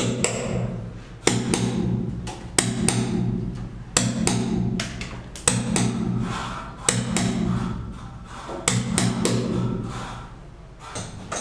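Background music with a slow beat: a sharp percussive hit about every second and a half over low sustained notes.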